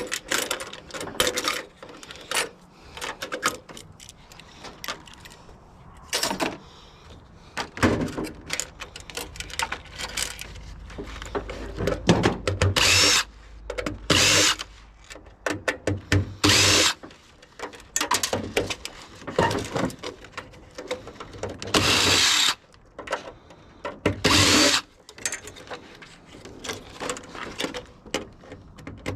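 Power drill running in repeated short bursts of about a second each, with metallic knocks and rattles in between, as fasteners are driven out of a water heater's casing.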